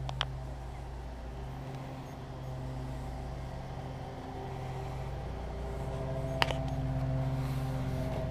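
A steady low mechanical hum, like a motor or fan running, with a couple of short clicks, the sharpest about six seconds in.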